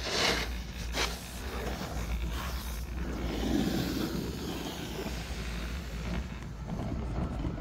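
Wind rumbling on the microphone during a chairlift ride, with brief rustling scrapes about a second in and a stronger gust a few seconds later.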